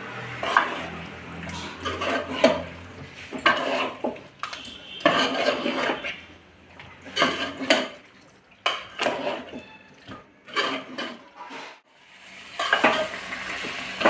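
A spoon stirring and scraping chicken pieces coated in thick masala around a cooking pan, in irregular clattering strokes with short pauses.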